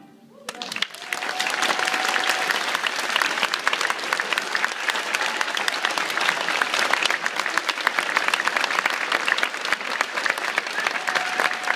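Audience applauding. The clapping starts about half a second in, builds within a second, and then holds steady.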